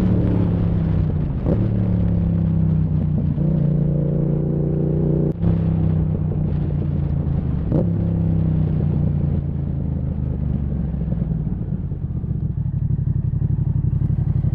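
Yamaha MT-07 parallel-twin engine running through a Zard aftermarket exhaust, with its revs falling steadily and sharp exhaust pops breaking in three times. The owner blames the Zard exhaust for these misfires in 2nd, 3rd and 4th gear. It ends on a rougher low rumble.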